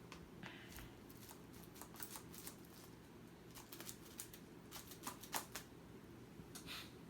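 Faint, scattered clicks and scratches of fingers picking at the plastic shrink wrap on a Blu-ray box set, over a low steady room hum.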